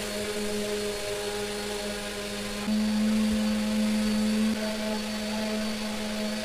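Steady machine hum from a running electric motor, louder for about two seconds in the middle.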